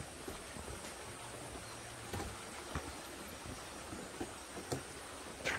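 Faint steady hiss with a few soft taps scattered through it.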